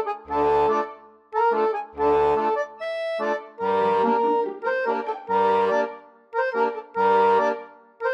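Background music: a reedy melody in short repeated phrases, with a low bass note under each phrase.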